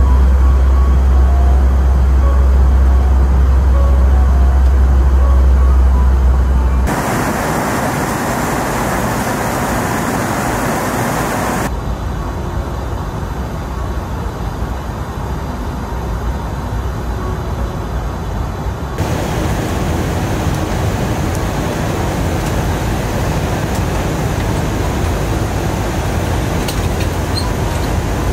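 Steady cabin noise of an Airbus A320-200 in flight: the rush of engines and airflow heard from a window seat. It comes in spliced clips whose tone shifts abruptly about 7, 12 and 19 seconds in, with a strong deep hum under the first seven seconds.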